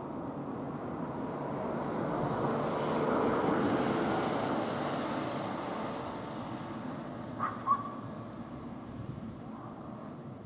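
A passing vehicle: a rushing noise that swells to a peak about three to four seconds in and then fades away. A short, sharp high chirp sounds about seven and a half seconds in.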